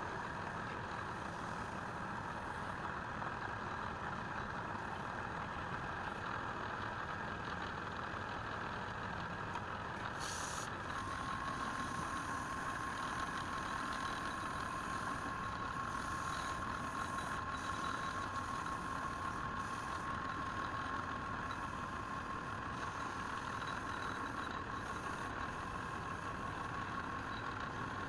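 A machine running steadily, with a steady high whine that joins about eleven seconds in.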